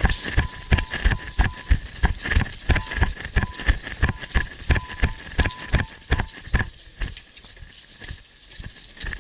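Footsteps of a person running at a steady pace, thumping about three times a second and fading after about six and a half seconds.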